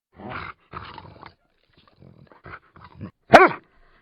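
Labrador Retriever making two short, rough, low vocal sounds, a few faint small noises, then one loud bark about three and a half seconds in.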